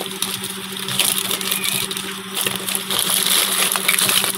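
Thin plastic shopping bag rustling and crinkling as hands grip and open it, with many small crackles, over a steady low hum.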